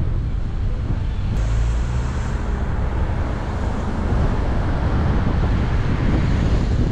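Car driving along a road: steady road and tyre noise mixed with wind rushing over the microphone, with a brief extra hiss about a second and a half in.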